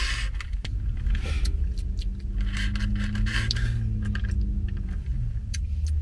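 A wide boba straw scraping and rubbing inside a plastic cup of milk tea with tapioca pearls as it is stirred, then a sip drawn through the straw. A steady low hum runs underneath in the car cabin.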